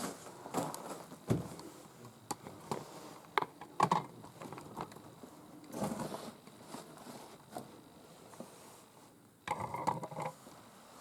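Scattered light knocks, clicks and scrapes of someone moving about in a shed, with short scuffing bursts about six seconds in and near the end.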